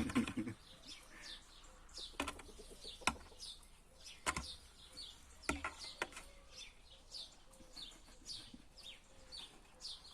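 A small bird chirping over and over, short high chirps that fall in pitch about once or twice a second, with a few sharp clicks or knocks between them.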